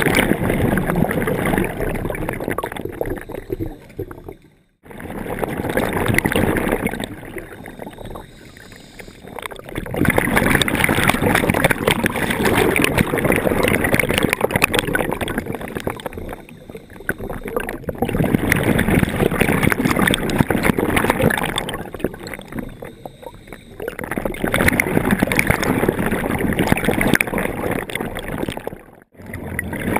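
Scuba regulator exhaust: a diver breathing out in long bubbling bursts, with short quieter pauses for each in-breath, the cycle repeating about every six seconds, heard underwater through a camera housing.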